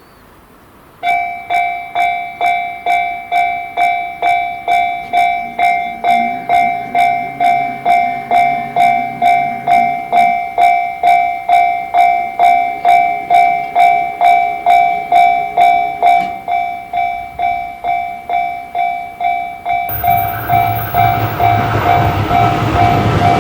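Japanese railway level crossing warning bell ringing its steady "kan-kan", about two strikes a second, starting about a second in. In the last few seconds a train's low rumble rises under the bell as it comes through.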